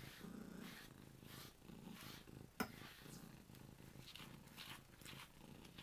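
Domestic cat purring faintly while being groomed, swelling and fading about once a second. A single sharp click about two and a half seconds in.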